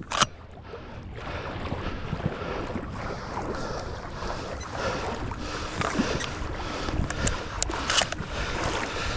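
Water sloshing and splashing, with scattered small clicks and knocks throughout; a sharp click just after the start and another near the end.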